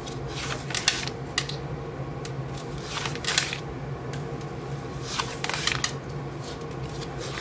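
Oracle cards being turned over and slid off the tops of two decks: a string of short papery swishes and light taps, the longest about three seconds in, over a faint steady low hum.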